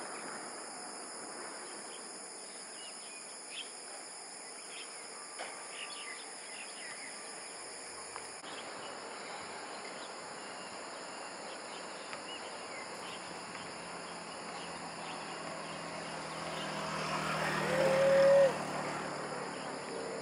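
Steady high-pitched insect drone with a few faint chirps. From about thirteen seconds in, the low hum of a passing vehicle swells and peaks near eighteen seconds with a short tone, then drops away.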